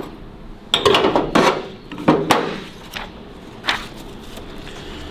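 Handling noises: a steel square and hand tools being set down and moved on the car's sheet-metal body. Short scraping rubs about a second in, then a few sharp clacks.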